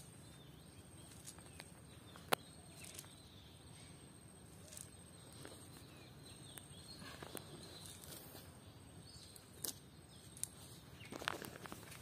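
Quiet outdoor ambience with a few sharp isolated clicks and a denser patch of clicks and rustling just before the end, from a cast net with sinkers being handled on a mudbank.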